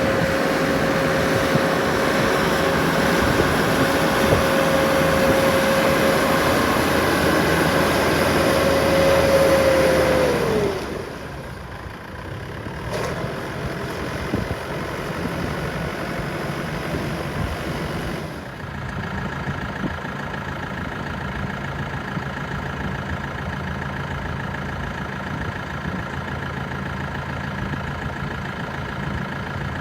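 New Holland T4030N tractor's diesel engine running at raised revs with a steady whine, then throttled back about ten seconds in and settling to a steady idle.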